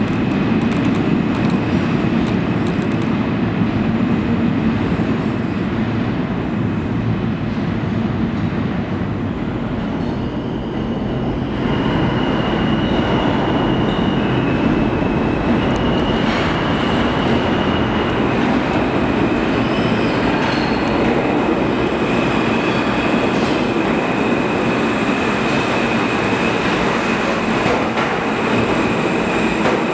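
New York City Subway R160 train rumbling on the rails in an underground station. About eleven seconds in, the train noise grows louder as a train comes in on the curved track, and a steady high-pitched squeal or whine sits over the rumble and shifts pitch a few times.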